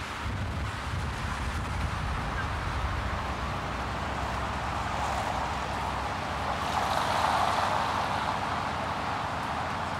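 Steady rain hiss with a car passing on the wet road, its tyre hiss swelling about seven seconds in and then fading.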